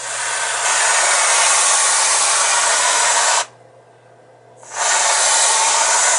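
Aerosol can of whipped cream spraying: a loud hiss for over three seconds, a pause of about a second, then a second spray.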